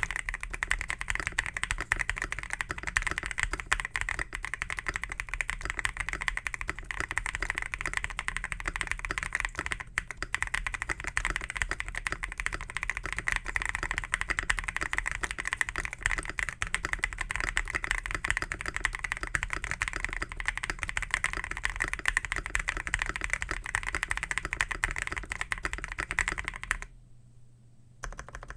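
Fast, continuous typing on a modded GMK67 mechanical keyboard with lubed and filmed Feker Holy Matcha V2 switches, Shimmer XDA keycaps, modded stabilizers, a three-layer tempest tape mod, 2 mm PE foam and polyfill. The keystrokes come in a dense stream and stop near the end.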